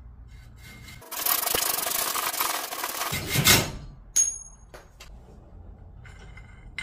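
Saw cutting through a mountain bike handlebar held in a saw guide in a bench vise: about two seconds of fast sawing strokes. A sharp metallic clink with a brief high ring follows a little after the sawing stops, then a lighter click.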